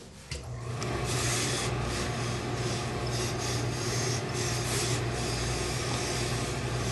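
Professional steam iron pressing a cotton dress shirt: uneven hissing and rubbing as it is slid over the fabric. Under it, a steady low machine hum starts about half a second in.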